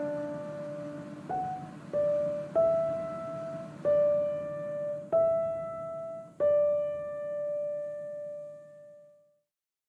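Background piano music: slow single notes struck about once a second, each ringing out and fading, the last one dying away to silence near the end.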